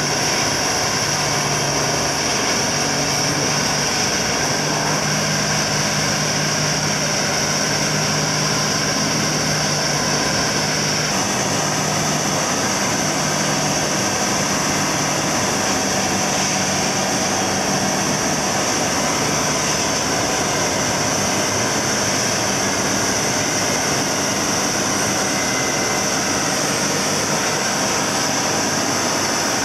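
1998 EarthSaver P13 wood-processing machine running steadily: a continuous heavy engine drone with a constant high hiss over it. The sound shifts slightly about eleven seconds in.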